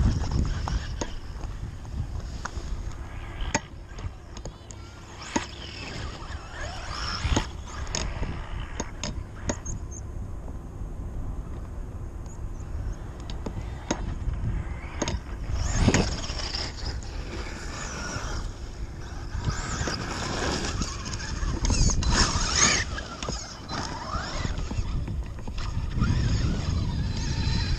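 Traxxas E-Maxx RC monster truck with a 6S-powered EZRUN 2200 kV brushless motor driving over gravel and grass: motor and tyre noise rising and falling, with scattered knocks of stones and several louder swells past the middle.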